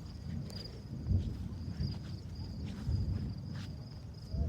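Crickets chirping in a steady pulsing trill, under three dull, low, distant booms spread across a few seconds, the kind of sky knocking heard during the storm.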